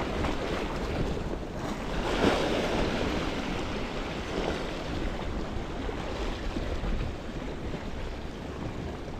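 Waves breaking on the shore, one swelling and crashing about two seconds in, with wind buffeting the microphone.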